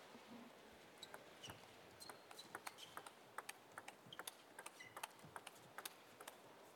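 A fast backhand-to-backhand table tennis rally: a quick run of light, sharp clicks as the ball is hit by the bats and bounces on the table, about four a second. The clicks start about a second in and stop shortly before the end, over a faint arena hush.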